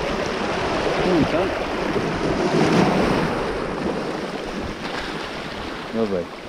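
Small waves washing in over a pebble beach, the surf swelling to its loudest about halfway through and then easing back.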